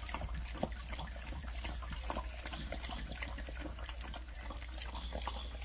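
A dog lapping milk from a stainless steel bowl: a run of quick, irregular wet laps and splashes, with a low steady hum underneath.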